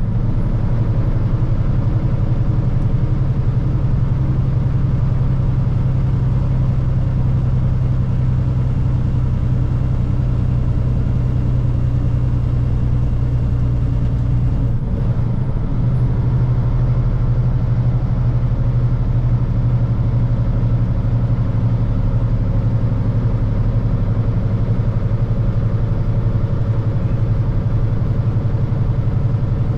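Semi-truck's diesel engine running steadily at highway speed, heard from inside the cab with road and tyre noise. The engine note dips and shifts briefly about halfway through.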